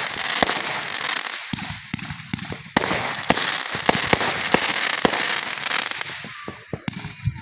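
Fireworks crackling: a dense, rapid crackle of many small sharp pops. It swells again about three seconds in and dies away near the end.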